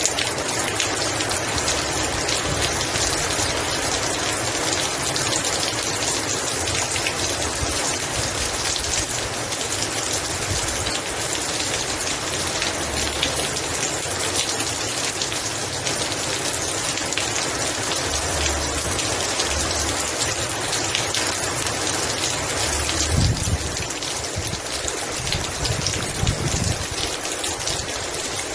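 Heavy rain falling steadily, a dense even hiss of drops. A few brief low rumbles come about three-quarters of the way through.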